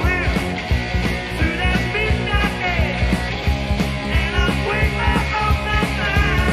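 Hard rock band recording playing, with drums, bass guitar and electric guitars over a steady beat.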